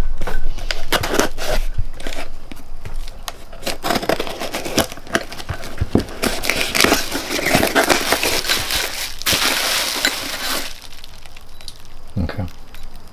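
Packaging being handled while parts are unboxed: plastic wrap and bubble wrap crinkling, with the rustle and clicks of a small cardboard box being opened. A longer, denser stretch of rustling about nine seconds in.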